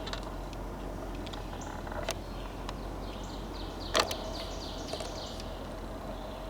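A songbird calling a quick run of about eight short falling high notes for a couple of seconds, over a steady outdoor rumble. A few sharp clicks stand out, the loudest about four seconds in.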